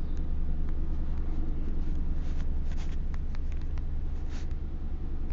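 Steady low background rumble, with scattered faint clicks and a few brief rustling sounds.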